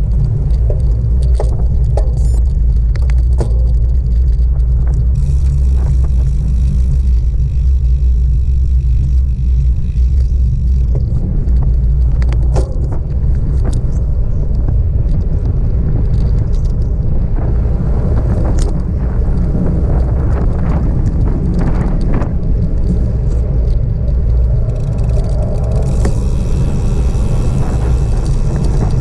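Wind buffeting the microphone of a bicycle-mounted action camera on a fast descent: a loud, steady low rumble, with scattered small ticks and rattles from the bike on the road.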